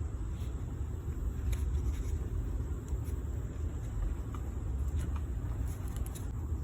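Steady low rumble in the background, with a few faint, sparse metallic clicks as the brake caliper's retaining pin and clip are fitted by hand.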